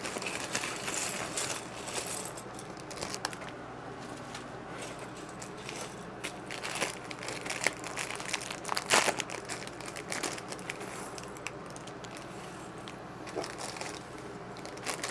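Plastic Lego parts bags crinkling as they are handled and opened, with small plastic bricks clattering out onto a desk and clicking against each other. The sharpest clatter comes about nine seconds in.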